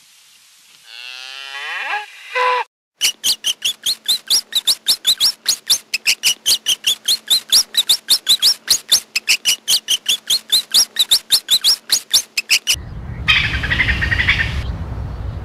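A Highland cow gives one moo, then a rat squeaks in a quick, even run of high chirps, about five a second, for roughly ten seconds. Near the end a short noisy burst and a low rumble follow.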